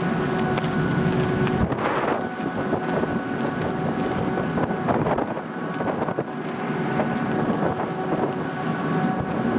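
Car ferry's engines and machinery humming steadily with a constant tone, with wind gusting on the microphone a few times.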